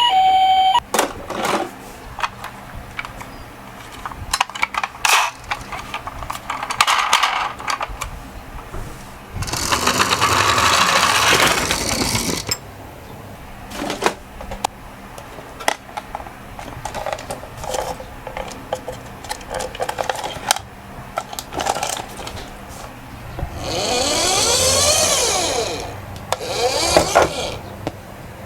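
Toy minicars handled and rolled down a slope: scattered small clicks and knocks, with two stretches of rolling-wheel noise of about three seconds each, one about ten seconds in and one later on.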